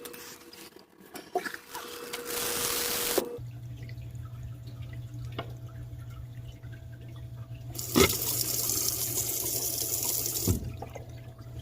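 Faucet with a newly replaced stem turned on and off twice, giving two spells of running water: a short one about two seconds in and a longer one of about three seconds near the end. Each starts and stops with a click. A low steady hum sets in from about three seconds in.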